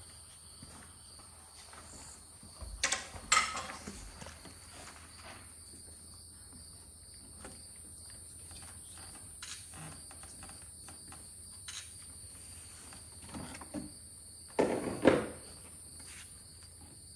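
Crickets chirping steadily. A snake-catching bag and tongs are set down and handled, giving short knocks and scrapes about three seconds in and again, louder, near the end.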